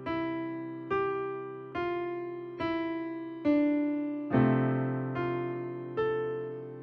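Background music: a slow melody on piano-like keyboard, one note struck a little under once a second, each ringing and fading away, with a fuller, deeper chord about four seconds in.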